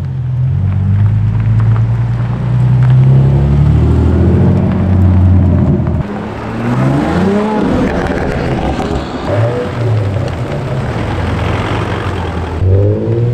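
Engines of cars pulling away one after another: a deep, steady engine and exhaust note for the first half, then after a cut, engines revving up and down as they drive off.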